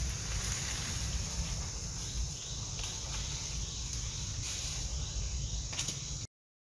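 Outdoor forest ambience: a steady high insect drone over wind rumbling on the microphone, cutting off suddenly near the end.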